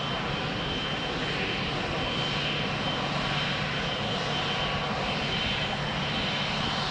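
Boeing 777 twin turbofan engines at taxi power: a steady rumble with a high, even whine.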